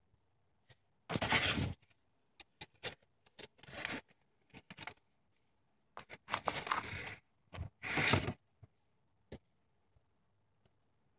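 Intermittent rustling and scraping: four short noisy bursts, each up to about a second long, with small clicks between them.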